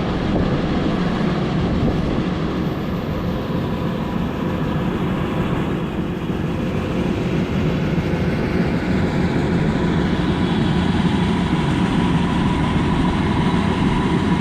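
A heavy engine running steadily at a constant speed, with an even mechanical hum throughout.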